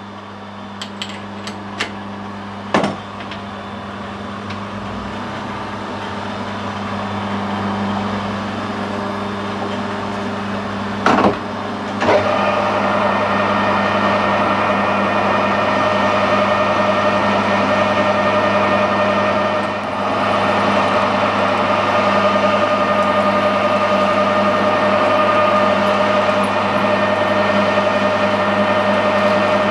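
Metal lathe running, its spindle turning a 316 stainless steel bar while it is centre drilled and drilled from the tailstock. It starts with a low steady hum and a few clicks; after a short loud knock about eleven seconds in, a steady gear whine joins and holds.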